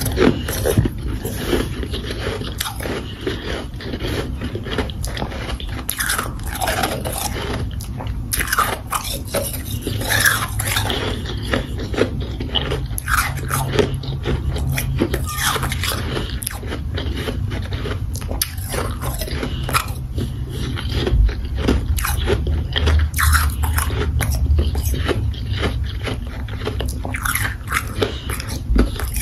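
Close-miked chewing of crunchy, powdery ice chunks: a dense, irregular run of crunches that carries on without a break.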